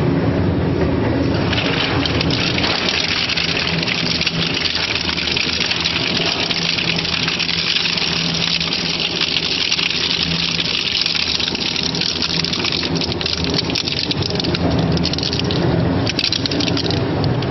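Twin-shaft shredder's hooked steel cutters chewing through a load of small wheels: dense crackling and crunching over the steady hum of the machine's drive. The crunching builds about a second and a half in and eases off near the end.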